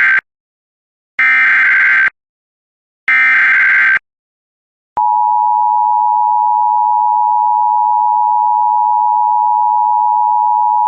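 Emergency Alert System SAME header: the end of one data burst, then two more, each about a second long with a second's gap between them. About five seconds in, the steady two-tone EAS attention signal starts and holds; here the alert being sent is a fire warning.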